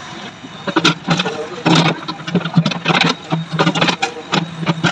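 An engine-like hum that keeps stopping and starting, mixed with many sharp clicks and knocks.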